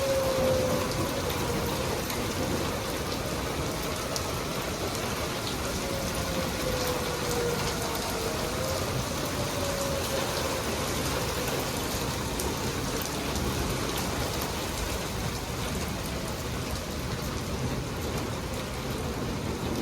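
Heavy rain pouring steadily. A distant tornado warning siren sounds faintly as a falling tone in the first two seconds and comes back briefly for a few seconds shortly after.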